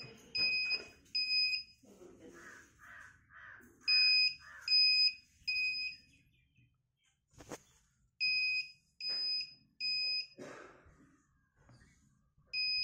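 Electric wheelchair's joystick controller beeping a warning in sets of three short high beeps, a set about every four seconds. The speaker links the alert to the wheels being locked.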